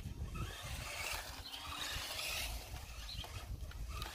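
Small electric RC car driving across a grass lawn, its motor and drivetrain running faintly, with gusty wind rumbling on the microphone.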